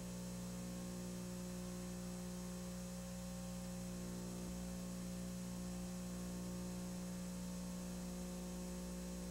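Steady electrical mains hum with a stack of even overtones, unchanging throughout; no other sound.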